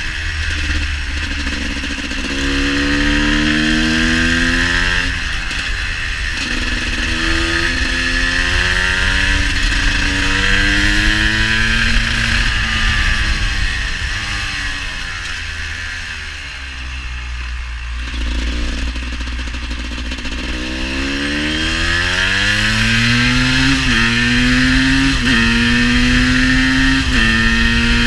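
GasGas EC 250 supermotard's single-cylinder two-stroke engine accelerating up through the gears: its pitch rises in repeated sweeps, each cut off by an upshift. About halfway through it eases off and slows, then accelerates again with several quick shifts near the end. The bike is running a little rich in the cold.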